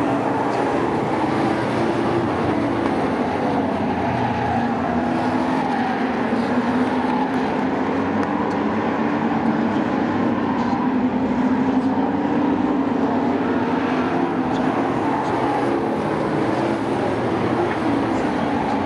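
Sport trucks racing on a short oval track, several engines running together in a continuous, fairly steady sound.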